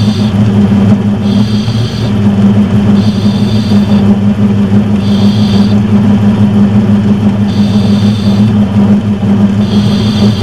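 Metal lathe running under power, a steady loud motor-and-gear hum, while boring out the bore of a steel change gear. A short high-pitched squeal recurs about every two seconds over the hum.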